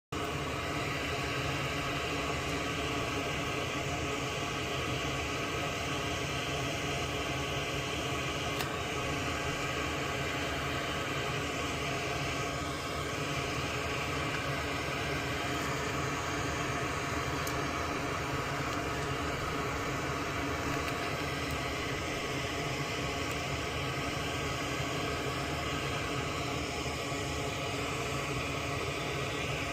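Steady fan-like whoosh with a constant low hum, unchanging throughout.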